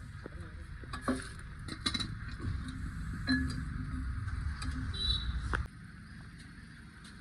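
Metal tools and engine parts clinking and knocking during engine teardown, over a low steady rumble that cuts off about five and a half seconds in.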